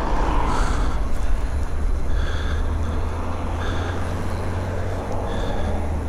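Wind rumble on the microphone and road noise while riding an electric bike, with three brief high chirps.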